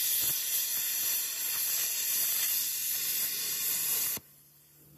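Cutting torch hissing steadily as its flame cuts into a heavy steel excavator part; the hiss stops suddenly about four seconds in.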